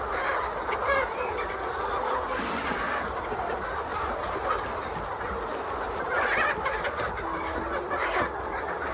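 A flock of laying hens clucking together, many overlapping calls in a steady chatter, with a few louder calls standing out near the end.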